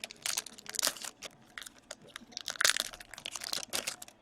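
Hockey card pack wrapper being torn open and crumpled, crackling in two spells: one from just after the start to about a second in, a louder one from about halfway to near the end.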